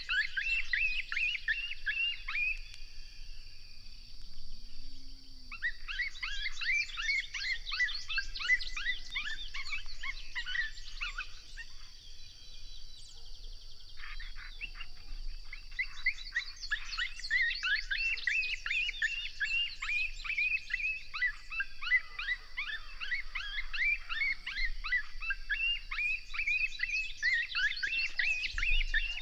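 A chorus of high-pitched coyote yips and yelps in long, dense bouts, with short pauses about four seconds in and again near the middle.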